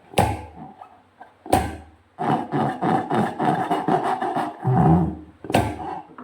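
Rubber balloon noises made by hand: a few sudden squeaky starts and a longer held, buzzing stretch in the middle.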